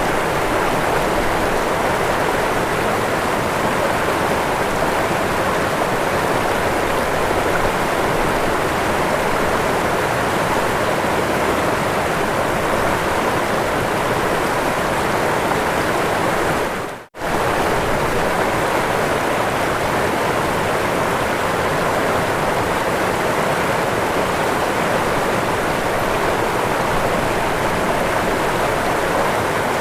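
Waterfall: a steady, even rush of falling water that cuts out for a split second about seventeen seconds in, then carries on unchanged.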